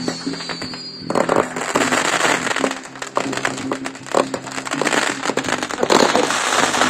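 Fireworks crackling and popping in quick irregular succession, the crackle growing denser about a second in, with music playing underneath.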